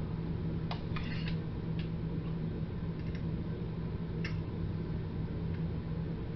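A few light, scattered clicks and taps from hand work on RV window trim and its fasteners, over a steady low hum.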